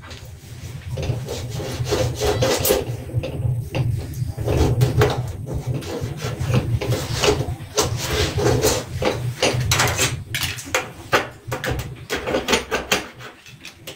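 Kitchen surface being wiped down by hand, in quick repeated back-and-forth rubbing strokes close to the microphone.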